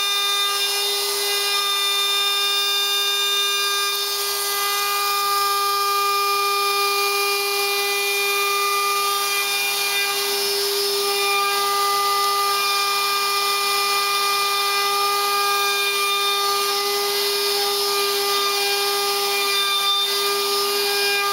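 DeWalt compact router spindle on a CNC machine running at a steady whine as its bit cuts select pine, with a hiss of cutting over it. The pitch shifts slightly now and then as the load on the bit changes.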